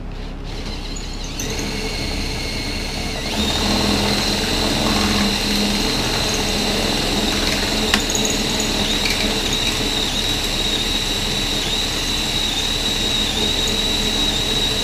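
Cordless drill with a 5/16-inch bit running steadily, drilling the threads out of the lower subframe mounting bolt hole on a Honda Gold Wing motorcycle. Its whine gets louder about three seconds in as the bit bites, with a single sharp click about eight seconds in.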